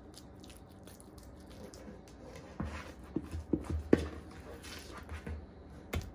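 A kitchen utensil knocking lightly against a dish while moist cornbread dressing is spread and evened out. It is quiet at first, then comes a scattering of soft taps from about two and a half seconds in, the sharpest near four seconds.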